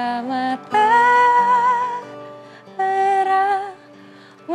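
A woman singing a slow Indonesian folk-pop melody in long held notes, with an acoustic guitar accompanying her. Sung phrases come about a second in and again around three seconds in, with quieter guitar between them.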